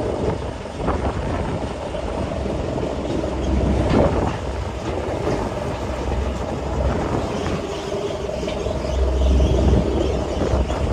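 Tracked pile driver running: a steady low engine drone with machinery clatter and a few irregular knocks.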